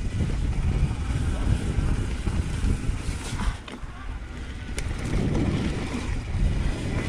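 Mountain bike rolling fast down a forest trail: wind rushing over the action-camera microphone mixed with the rumble of the tyres over dirt and rock and the bike rattling, with one sharp click just under five seconds in.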